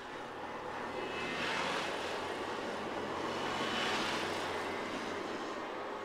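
Diesel railcar passing at low speed: a steady low engine hum under wheel and rail noise that swells over the first second or two, stays up, and eases slightly near the end.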